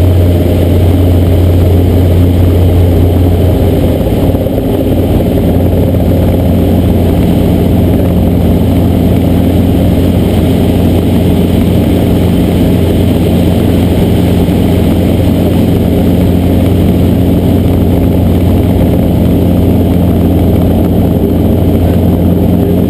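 Small piston helicopter's engine and rotor drone heard from inside the cabin, loud and steady, its tone shifting slightly about four to five seconds in.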